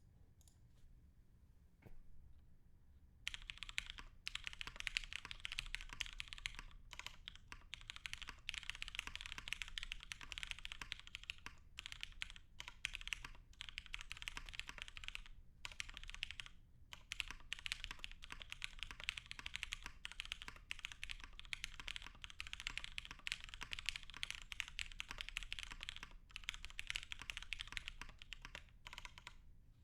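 Continuous typing on a mechanical keyboard with Cherry MX Black linear switches and DCS keycaps: a rapid patter of keystrokes with brief pauses. The typing starts about three seconds in.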